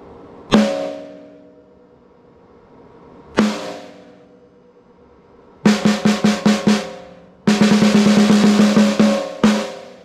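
Pearl Soprano 12-inch by 7-inch maple snare drum struck with a wooden drumstick: two single hits a few seconds apart, then a quick run of about seven strokes, a roll of about two seconds and one last hit near the end. Each stroke rattles the snare wires, and the drum rings on with a clear pitch after it.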